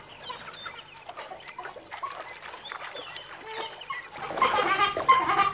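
African wild dogs giving high twittering calls at play: faint and scattered at first, then louder and busier from about four seconds in.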